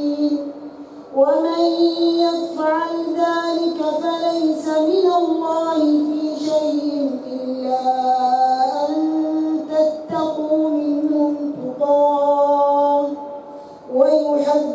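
An imam's voice reciting the Quran aloud in prayer, a melodic chant amplified through a microphone, with long held notes and ornamented turns. The phrases break off briefly about a second in and again near the end.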